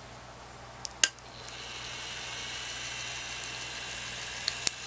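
DeJur 750 film projector's brush motor and gear-and-chain mechanism starting up after a sharp click about a second in, then running with a steady whir at its lowest speed setting. Two short clicks near the end.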